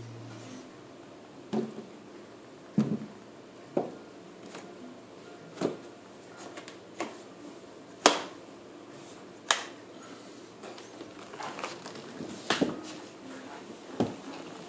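Irregular sharp clicks and knocks, about a dozen spaced a second or so apart, over a faint steady room hiss: handling noises in a small room. The loudest comes about eight seconds in.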